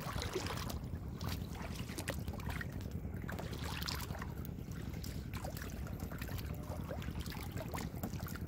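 Wind rumbling on the microphone, with small splashes, drips and sloshing of shallow muddy water as hands grope through it for fish.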